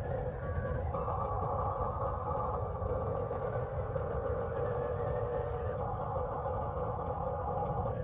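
Small electric motors and plastic gearboxes of radio-controlled toy construction machines running steadily, a droning whine that shifts slightly in pitch about a second in and again near six seconds as the load changes.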